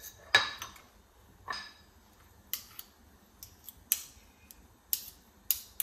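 Metal fork clicking and scraping against plastic bowls while scooping out soft cream cheese: about ten short, sharp clicks at uneven intervals.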